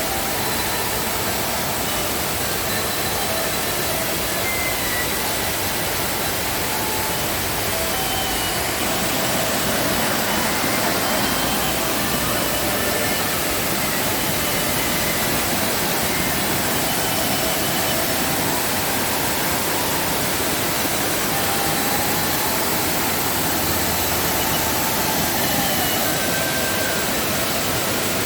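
Steady roar of a waterfall in heavy rainy-season flow, water pouring over rock. A few faint short whistled notes sound over the roar.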